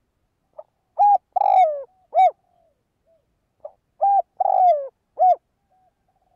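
Spotted dove cooing its song twice, each phrase a short soft note followed by three loud coos, the middle coo the longest and dropping in pitch at its end. It is a caged decoy dove's call, used to stir wild doves.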